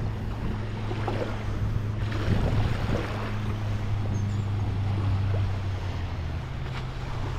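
Beach ambience: waves washing ashore and wind on the microphone, under a steady low hum that fades slightly near the end.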